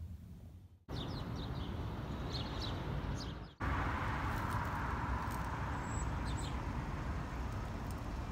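Small birds chirping in short calls over a steady outdoor rush of background noise. The noise changes abruptly twice, where the footage cuts between clips, and is loudest and fullest in the second half.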